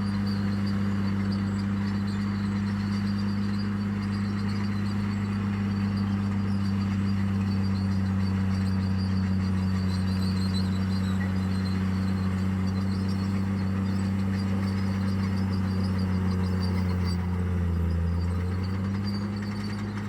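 Heavy construction machine's diesel engine running steadily with a deep, even hum. Its pitch dips briefly near the end, as if under load, then comes back up.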